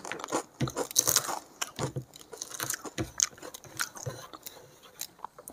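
Close-miked chewing of a mouthful of rice, egg curry and papad: irregular wet mouth clicks and a few crisp crunches.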